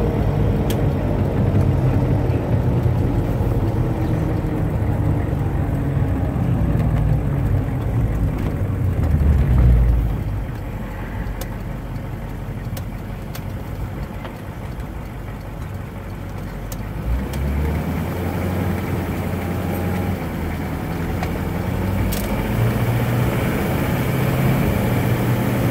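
A 1998 Hummer H1's 6.5-litre turbodiesel V8 heard from inside the cab. It quietens to an idle near the middle, then pulls away with the engine speed rising in the last seconds.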